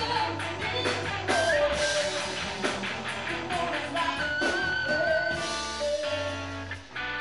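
Rock band playing live: distorted electric guitar, bass guitar and drum kit, with the lead guitar bending up into long held notes that waver, about halfway through.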